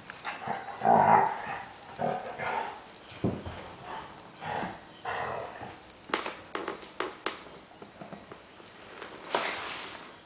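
Two dogs play-fighting, with a run of short growls and grumbles, the loudest about a second in. A few sharp taps come around six to seven seconds in, and a short rushing burst near the end.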